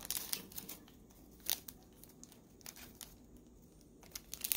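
Tissue paper and crinkle-paper shred rustling and crackling as a hand rummages through a packed gift box. The crackles are scattered, loudest about a second and a half in and again near the end.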